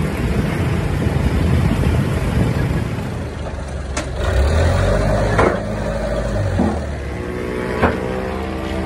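A forklift's engine running steadily, with three sharp knocks about four, five and a half and eight seconds in.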